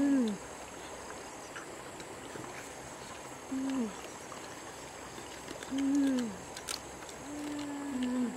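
A woman humming 'mmm' with enjoyment while she eats: four drawn-out hums, each dropping in pitch at the end, over a faint steady hiss.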